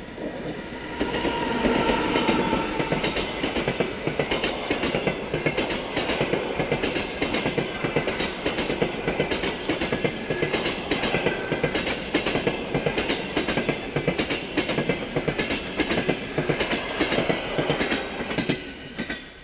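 Locomotive-hauled passenger train passing close at speed: its wheels clatter in a fast, steady clickety-clack over the rail joints as the coaches go by. The noise drops away suddenly near the end.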